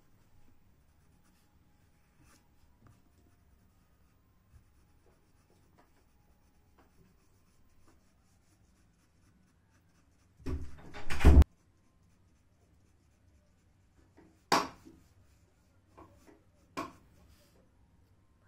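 Pencil shading on paper: faint, scratchy strokes. About ten seconds in comes a loud noise lasting about a second, then a sharp knock about four seconds later and two fainter knocks after it.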